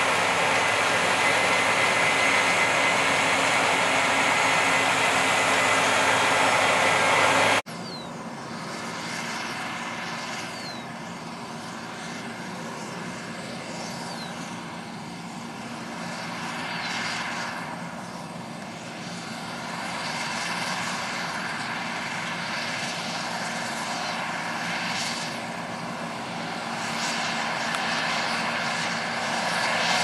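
Case IH 8120 Axial-Flow combine working a wheat field close by: a loud, steady machine drone with a high whine. About seven and a half seconds in it changes abruptly to a quieter John Deere 9770 STS combine at work, whose drone rises and falls a little.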